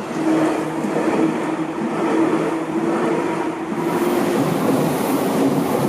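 Seibu Ikebukuro Line electric commuter train passing at close range over a level crossing: a loud, continuous rumble of wheels on the rails with a steady hum. A higher hiss comes in about four seconds in.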